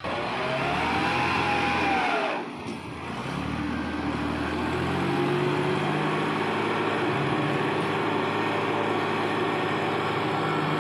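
Farm tractor engine revving under load as it drags a rear leveling blade through loose soil. The engine pitch rises and falls over the first two seconds, dips briefly, then climbs again and holds steady.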